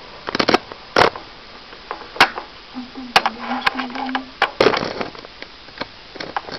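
Plated lizard chewing a mole cricket: irregular sharp clicks and cracks of crunching, a dozen or so over several seconds.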